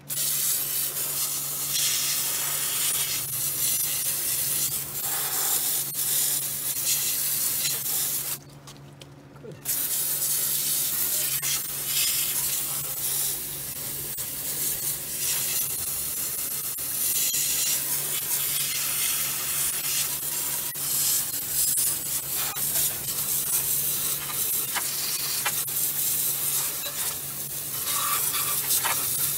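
Garden hose pistol nozzle shooting a hard jet of water into a car's wheel well and onto the front suspension, a loud steady hissing spray. It stops for about a second some eight seconds in, then runs on.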